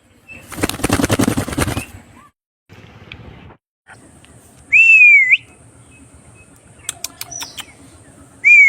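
Pet parrot giving two loud, short whistles that swoop down and back up, one about halfway through and one at the end. A harsh raspy noise comes near the start, and a few sharp clicks fall between the whistles.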